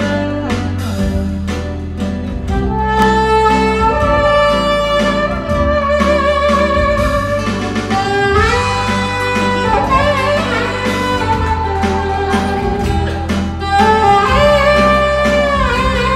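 Saxophone playing a slow, lyrical instrumental solo over acoustic guitar accompaniment, with long held notes joined by slurred bends.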